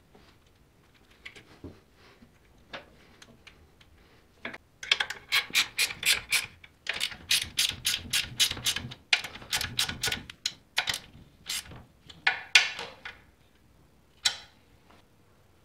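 Hand socket ratchet clicking in quick runs while it tightens the exhaust header's flange nuts onto the cylinder head. A few faint clicks come first, then the steady runs of ratcheting start about five seconds in and stop a couple of seconds before the end, with one last click after.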